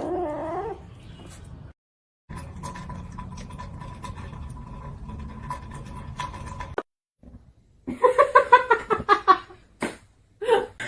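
Cat vocalising in several short clips: a gliding meow at the start, then after a cut a quieter stretch with a faint steady hum, then about eight seconds in a rapid run of short pitched cries lasting about two seconds, the loudest part.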